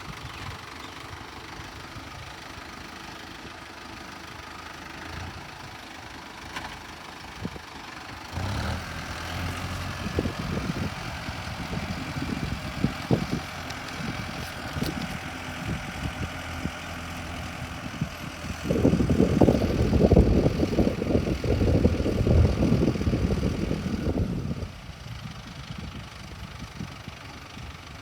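Mahindra Arjun Novo 605 DI tractor's diesel engine running steadily. About 8 seconds in it gets louder and rougher, then louder still with heavy rumbling for several seconds near the end, before dropping back.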